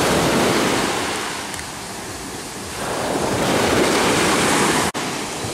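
Sea surf on a sandy beach: small waves breaking and washing up the shore. The surf eases off about halfway through, swells again, and cuts out briefly near the end.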